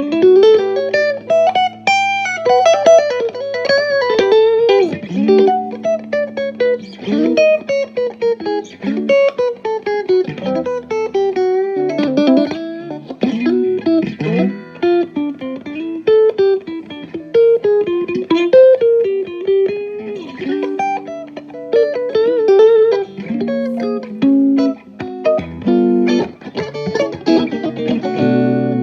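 Electric guitar played through a wet/dry amp rig of a Fender Blues Junior and a Peavey Bandit red stripe. It plays a continuous single-note melody with bent and sliding notes over held lower notes.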